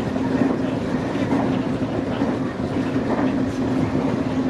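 Nankai electric train running at speed, heard from inside the front car: wheels on the rails with a steady low hum.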